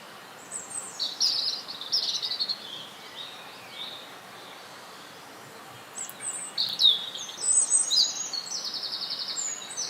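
Small songbirds chirping and singing in high, quick notes, in two spells: one starting about a second in, and a busier one from about six seconds in that ends in a rapid trill. A steady hiss runs beneath.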